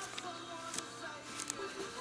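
Background music with held notes, broken by a few sharp clicks about a second in and again near the end.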